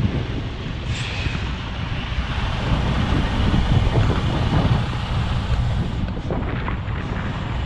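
Semi-truck's diesel engine idling with the truck stopped, heard from inside the cab as a steady low rumble. A brief high-pitched sound comes about a second in.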